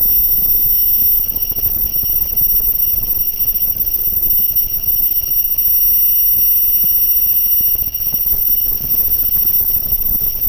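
Gemstone CNC drilling and engraving machine running: a steady high-pitched spindle whine made of several constant tones over a low rumble.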